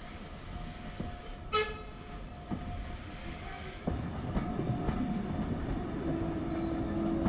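Steam train heard from inside a moving carriage through an open window, rolling and gathering speed behind a Hunslet Austerity saddle-tank locomotive, with wheel clicks over the rails. There is one short toot of the steam whistle about a second and a half in. The running sound grows louder in the second half, and music fades in near the end.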